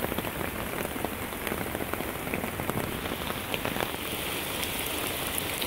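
Steady rain falling on a tarp overhead, an even hiss with scattered drops ticking through it.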